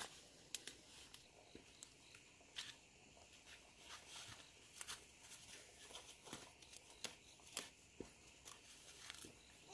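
Near silence with faint, scattered short clicks and light rustling.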